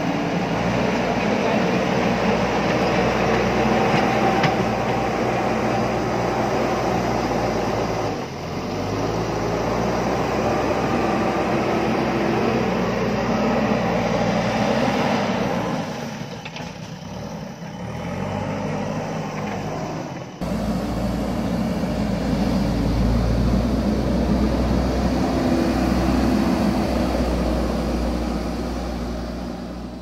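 JCB backhoe loader's diesel engine running under load as the machine digs and shifts soil with its front bucket, its pitch rising and falling several times as it revs. About twenty seconds in, the sound changes abruptly to a deeper, louder running.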